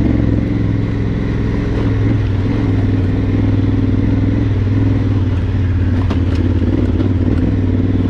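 Adventure motorcycle engine idling steadily, with a few light clicks about six seconds in.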